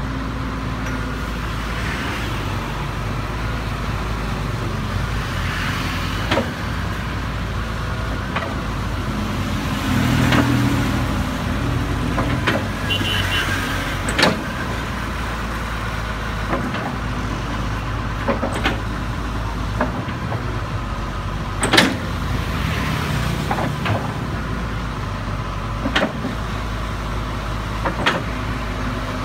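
Doosan wheeled excavator's diesel engine running steadily as the boom and bucket work, with sharp metal clanks from the bucket and linkage every few seconds. The engine swells briefly about ten seconds in.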